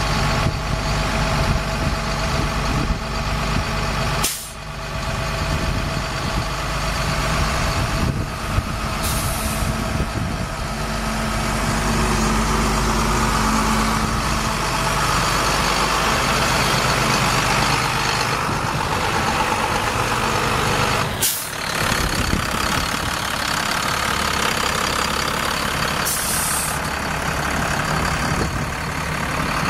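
Six-cylinder turbo diesel of a bucket truck running steadily, powering the hydraulics through the PTO as the boom is lowered. Two short hisses come about a third of the way in and again near the end.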